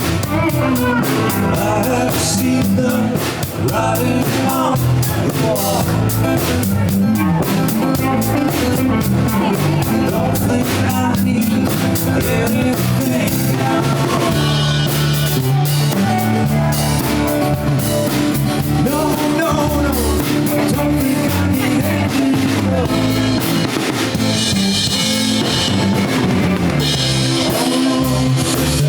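Rock music with a drum kit keeping a steady beat, guitar and a singing voice.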